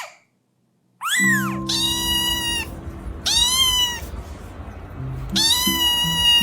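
A kitten meowing four times in a high, crying voice, the later calls long and drawn out, over background music.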